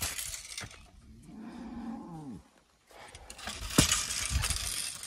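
A cow mooing once, a drawn-out call of about a second and a half whose pitch arches and drops away at the end. A short burst of noise with a sharp knock follows near four seconds in.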